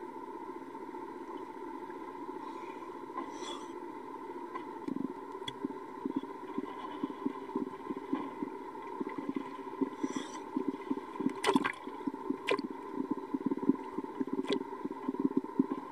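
Water gurgling and lapping around a camera at the waterline, over a steady hum. From about five seconds in it turns into quick, bubbly crackling, with a few sharp splashes or knocks in the second half.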